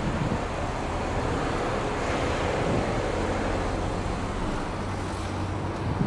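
Subaru Legacy Touring Wagon 2.0R B-Sport's naturally aspirated 2.0-litre flat-four engine idling steadily, heard at its twin exhaust tailpipes.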